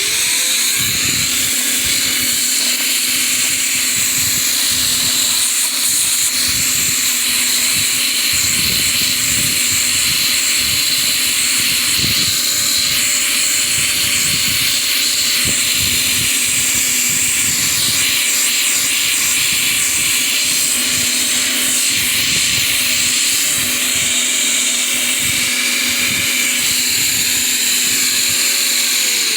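A small electric motor spins up at the start, then runs steadily with a whine over a loud rushing hiss. It winds down near the end.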